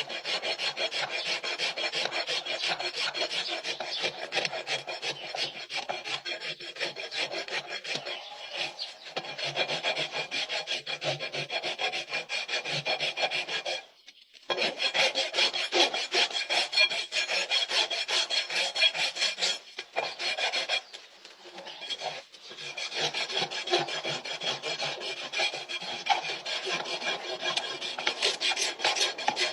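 Farrier's rasp filing a horse's hoof in quick, rapid strokes, with a brief pause about halfway through and another short lull about two-thirds of the way in.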